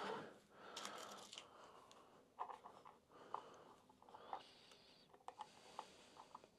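Faint handling noise: a brief rustle, then a scatter of small, sharp clicks and taps as hands set a brass heat-set insert and a 3D-printed block in place at the base of an insert press.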